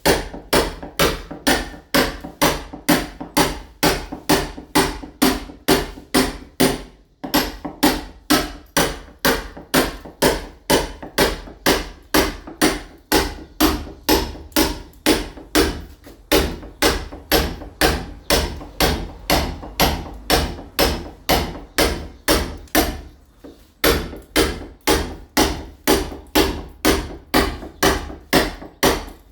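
Small sledgehammer striking a steel chisel, chipping a painted wall to key it for ceramic tile. The blows are steady and sharp, about two and a half a second, with a brief break about seven seconds in and another late on.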